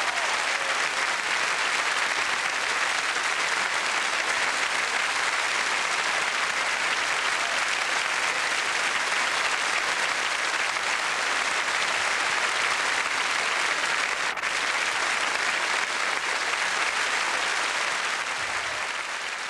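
A large audience applauding steadily, a long ovation that begins to fade near the end.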